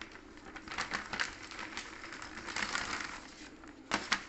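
Irregular rustling and crinkling of plastic packaging being handled, dotted with small clicks, then two sharp knocks close together about four seconds in.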